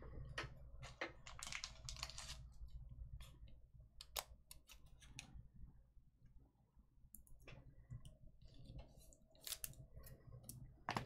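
Faint, irregular clicks and taps, scattered and unevenly spaced, over a low steady room hum.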